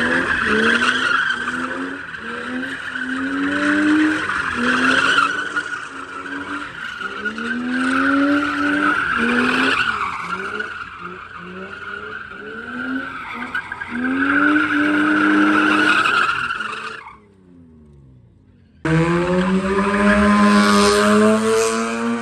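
A car drifting in tight circles: its engine revs rise and fall over and over while the tyres squeal steadily. About 17 seconds in the sound drops away for two seconds. Then a second car's engine, a Mazda RX-8's rotary, revs up and holds high with the tyres squealing.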